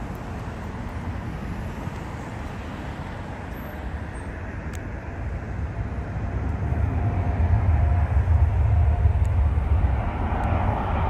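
Road traffic passing, a steady low rumble that swells as a vehicle goes by close, loudest about eight to nine seconds in.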